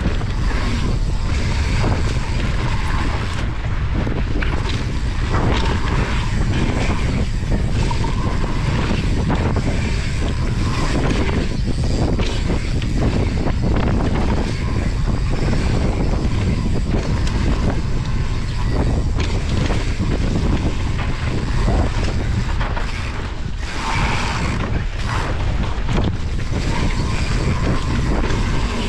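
Wind rushing over a handlebar-mounted camera's microphone as a mountain bike rides a dirt singletrack, with heavy rumble from the tyres on the dirt and many small clicks and knocks as the bike rattles over the rough ground.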